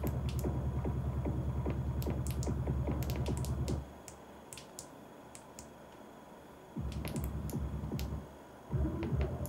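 Music received over the air from a homemade canned-crystal-oscillator transmitter and played through a computer speaker by SDR software. The music is narrowband, only about 3.4 kHz wide, and rhythmic with strong bass. It drops out about four seconds in, returns briefly near seven seconds, drops again and comes back near the end, with sharp clicks scattered throughout.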